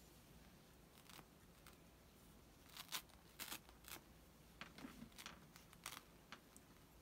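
Faint scratching and rustling of fabric and appliqué sheet as a small pointed tool and fingertips lift and nudge sticky fusible appliqué pieces: a scattering of short scrapes, most of them in the middle and later part.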